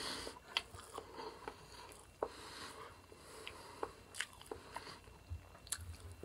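Shell of a hard-boiled egg crackling and clicking in small, irregular snaps as it is picked off by hand, with some chewing.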